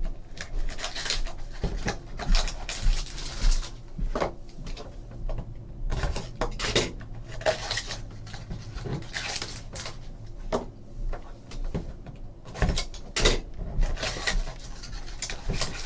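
Hands handling foil trading-card packs and a cardboard box: a run of crinkles, light taps and clicks, with no steady sound underneath.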